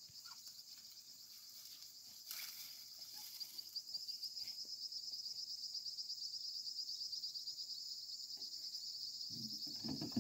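Insects calling in a steady, high-pitched, rapidly pulsing trill, growing a little louder after the first few seconds. A short low rumble comes just before the end.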